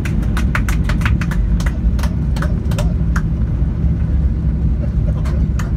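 Airliner cabin noise during the roll-out after landing: a steady low rumble, with a quick run of sharp clicks and rattles in the first second and a half and a few more scattered later.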